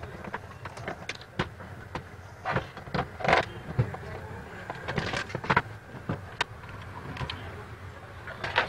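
Handling noises from taking apart an induction cooktop: irregular clicks, knocks and rattles of its plastic casing, coil and glass top being lifted and set down, over a steady low rumble.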